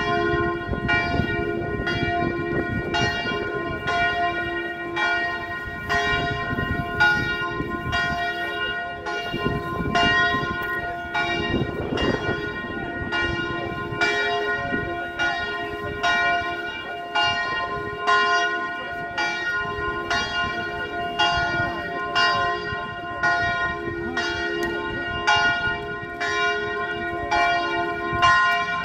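Church bell in a tower tolling steadily, about one stroke a second, each stroke ringing on into the next.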